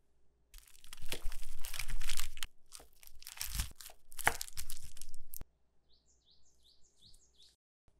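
Crunching and crackling of crisp pan-fried banana roti being broken apart, in several bursts over about five seconds. This is followed by a quick run of about eight short, high, falling chirps.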